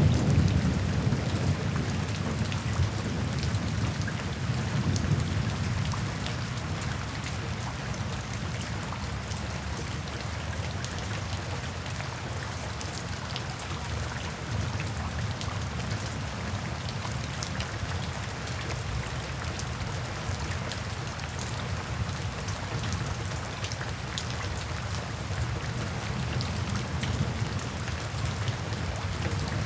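Steady rain drumming on a tin roof, with many small, sharp drop ticks over a constant hiss. A low rumble of thunder is loudest at the start and dies away over the first several seconds.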